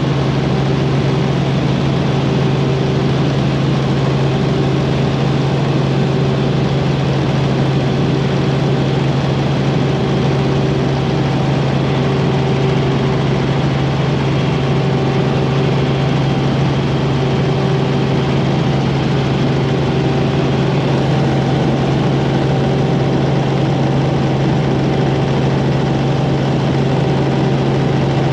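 Helicopter in flight: the engine and rotor give a steady low drone with a higher tone that swells and fades every couple of seconds.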